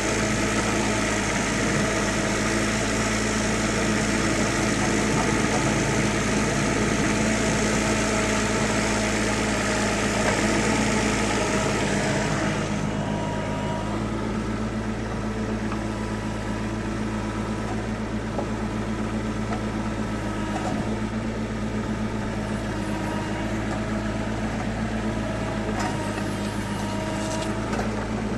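Cat 301.7CR compact excavator's diesel engine running steadily at a constant speed. A higher hiss over the engine stops suddenly about twelve seconds in, and the engine runs on a little quieter.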